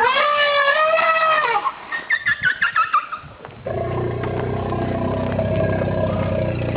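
An Asian elephant squealing in fear: one long high, wavering call, then a quick run of short squeaky calls. From a little under four seconds in, a steady motor engine hum takes over.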